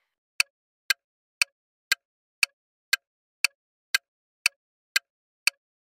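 Quiz countdown-timer sound effect: clock-like ticks, evenly spaced at two a second, about a dozen in all, with silence between them.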